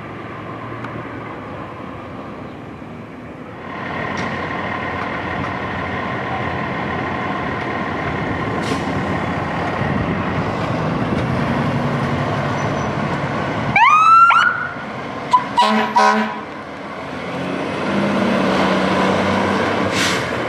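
Pierce fire truck running on an emergency response. About fourteen seconds in, a siren winds up in one quick rising sweep, followed by a few short air-horn blasts, and then the engine pulls away.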